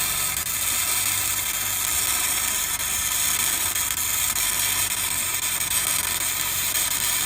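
Flux-core wire-feed welder arc sizzling steadily while a bead is laid on a cracked cast-iron steering knuckle, with the wire feeding too fast by the welder's own account.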